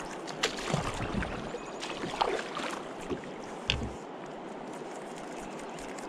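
Kayak paddle work on a Vibe Yellowfin 100 plastic sit-on-top kayak: splashes and knocks of the paddle against the hull, the loudest about two seconds in and a deep thump near four seconds. After that there is only a steady hiss of moving water.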